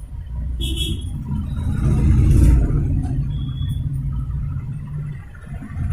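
A low rumble that swells to its loudest about halfway through and then eases, with a short high tone about half a second in and another brief one a little past the middle.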